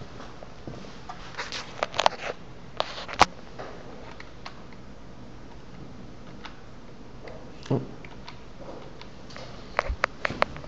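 Classroom room tone with scattered sharp clicks and knocks, in a cluster about two seconds in, once more later, and another quick cluster near the end.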